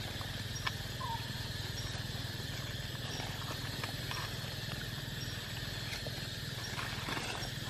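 Steady outdoor background hum and hiss, with a faint high tone repeating about once a second, a few scattered light clicks, and a short small chirp about a second in.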